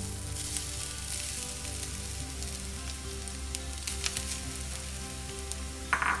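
Grated coconut sizzling in hot oil in a non-stick frying pan, the hiss starting as the coconut is poured in. There are a few light ticks and a brief, sharper sound near the end.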